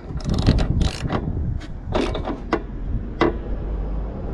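Socket ratchet clicking in short runs as a new spark plug is tightened into a push mower's four-stroke engine.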